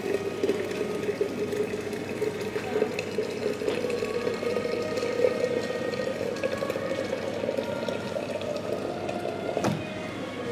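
Water running from a stainless-steel water boiler's tap into a vacuum flask, the filling note rising slowly as the flask fills. Near the end there is a sharp knock as the tap is shut off, and the flow stops.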